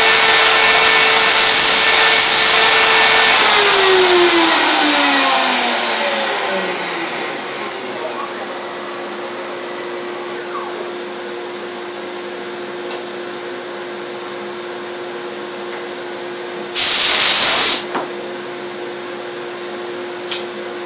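Hobby CNC router's spindle motor running loud and steady, then switched off about three seconds in, its pitch falling as it winds down over several seconds. A lower steady hum carries on after it, and near the end there is a loud rush of noise lasting about a second.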